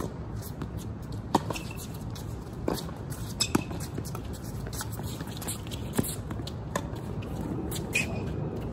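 Tennis ball being struck by rackets and bouncing on a hard court during a rally: sharp pops at irregular intervals, about a second or more apart, over a steady low background hum.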